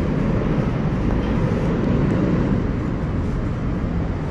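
Steady low rumble inside the Roosevelt Island Tramway cabin as it runs along its cables.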